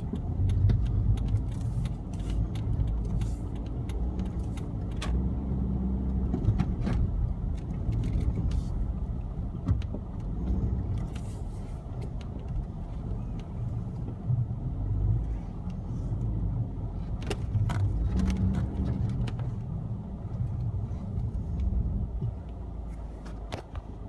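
Car driving on snowy streets, heard from inside the cabin: a steady low rumble of engine and tyres, with scattered clicks and knocks.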